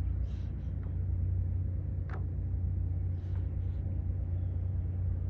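Finless porpoise breathing at the surface: two short hissing breath puffs about three seconds apart, each a quick double puff. They sit over a steady low engine rumble, and there is a single sharp click about two seconds in.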